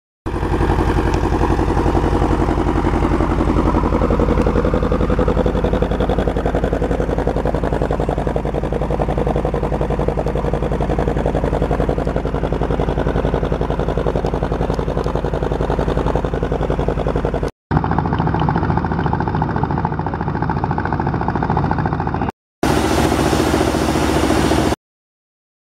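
Borehole drilling rig's engine running steadily under load while boring, in three stretches joined by abrupt cuts, the last stopping suddenly shortly before the end.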